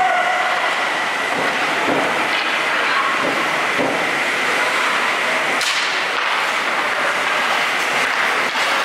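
Ice hockey skates scraping and carving on the ice and sticks clacking on the puck during a faceoff and the play that follows, with one sharp crack about halfway through, over a steady rink din.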